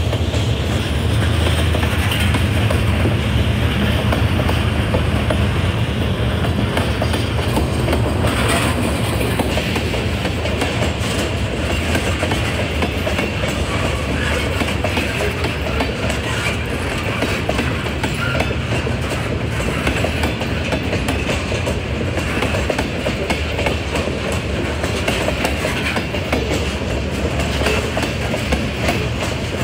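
Freight train of covered hopper cars rolling past, their steel wheels running on the rails in a steady low rumble.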